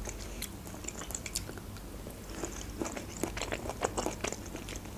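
Close-miked chewing: soft, wet mouth clicks and smacks of a person chewing a mouthful of food, becoming more frequent about halfway through.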